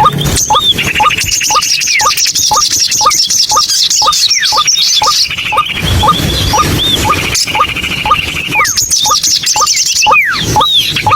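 White-breasted waterhen (ruak-ruak) calling: a short rising note repeated about twice a second, with curling higher calls and stretches of a fast, high trill over it.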